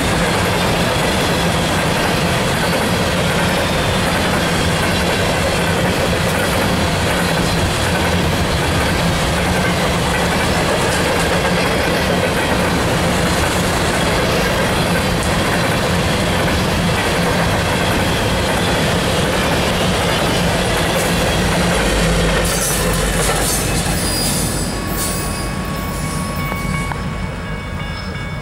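Empty coal hopper cars rolling past close by at speed, a steady noise of steel wheels on rail with clickety-clack from the rail joints. About three-quarters of the way through the noise thins and drops as the train is heard farther off.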